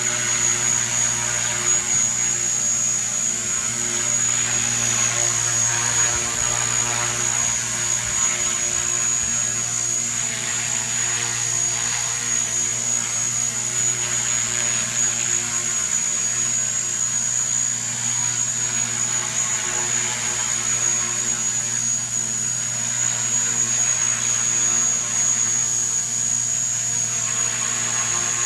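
Radio-controlled model helicopter hovering: a steady rotor hum with a high, even whine over it, held at a constant speed.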